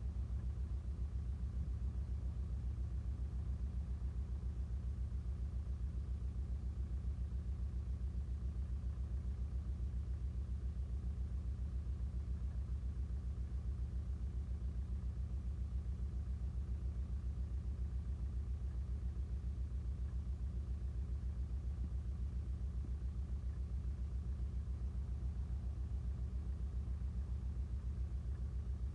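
Engine idling steadily: an even low rumble with a fine regular pulse that does not change.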